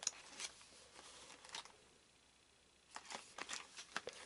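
Faint rustling and light taps of fingers handling a cardboard booster box as it is turned over, in two spells with a pause about two seconds in.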